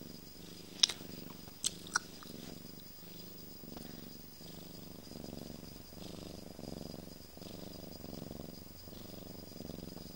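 A sleeping cat purring steadily at close range, the purr swelling and easing with each breath in and out. Three sharp clicks come about a second in and twice more before two seconds.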